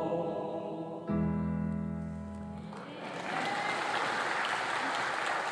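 A piece of choir music ends on a held closing chord with a low accompaniment, and about three seconds in an audience starts applauding.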